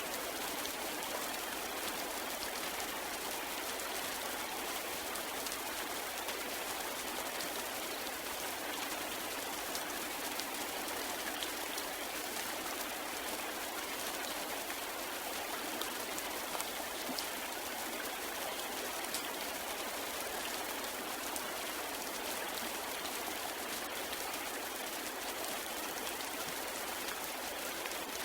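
Steady rain falling: an even hiss with faint, scattered drop ticks throughout.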